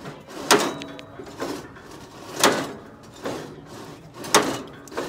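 Plastic oil bottle squeezed against a transplanter's roller drive chain, squirting oil onto it. There is a short, sharp squirt about every two seconds, three times in all.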